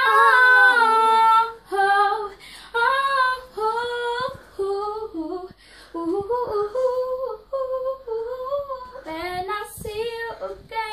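A young girl singing, starting with a held note of about a second and a half, then short sung phrases.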